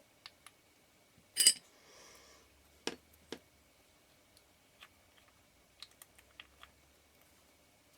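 Small clicks and taps of metal lens parts and tools being handled on a workbench, with one louder clatter about a second and a half in and a few sharper knocks around three seconds.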